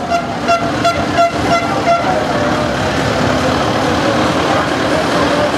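A horn tooting in a quick run of about six short blasts, roughly three a second, over the steady running of a passing farm tractor's engine; the toots stop about two seconds in and the tractor noise carries on.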